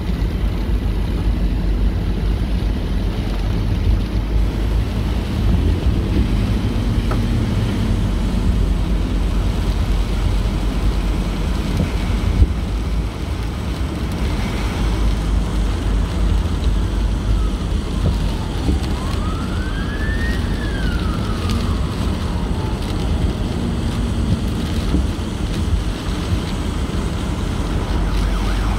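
Steady low rumble of a car driving on a wet highway, heard from inside the cabin: tyres on wet pavement and engine. About two-thirds of the way through, a distant emergency siren wails faintly, rising and falling in pitch.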